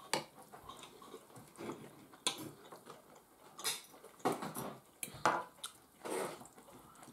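Knives and forks clinking and scraping on china plates at irregular moments, with chewing between, as two people eat.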